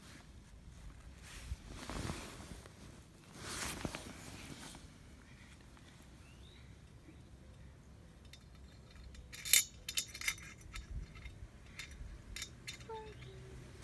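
Metal fitting being handled in the centre hole of a large metal bell, with a quick cluster of sharp metallic clinks about ten seconds in and lighter ticks after. Earlier there are two soft rushing swells of handling noise.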